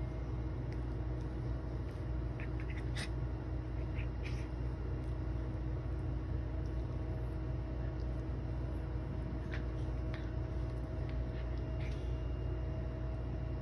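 Steady low hum, with faint scattered clicks and rustles as a Chihuahua chews and tugs a rope toy on bedding.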